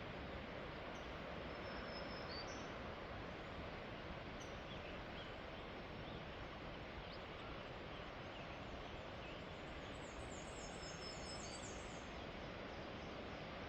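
Steady rushing of the Lehigh River far below in the gorge, with a few faint high bird calls; near the end a bird gives a quick run of high repeated notes lasting about two seconds.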